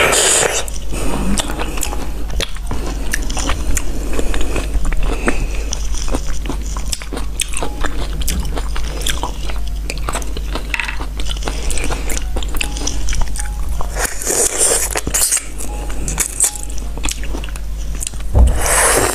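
Close-miked mouth sounds of someone biting and chewing juicy fresh fruit: a steady run of small wet clicks and crunches, with a few louder stretches about fourteen seconds in and again near the end.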